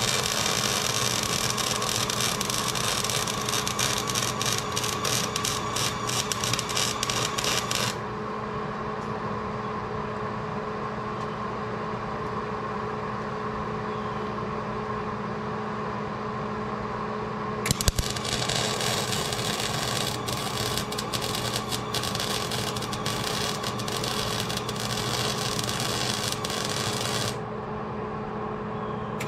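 MIG welding arc crackling as rebar is tacked onto quarter-inch steel U-channel, over a steady hum. Two runs of welding: the first stops about eight seconds in, and after a quiet pause and a sharp click the second runs until shortly before the end.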